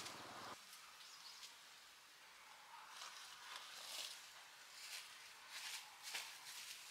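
Faint outdoor background with a few brief, soft noises scattered through it.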